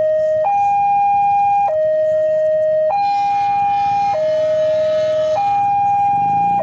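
Railway level-crossing warning alarm: an electronic two-tone signal alternating between a higher and a lower tone, each held a little over a second. A fainter sound with many overtones joins from about three seconds in until about five and a half.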